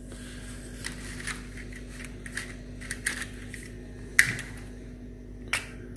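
Light plastic clicks and rattles of Lego pieces being handled and pressed together, as the front blade assembly is fitted onto the snow groomer, with one sharper snap about four seconds in.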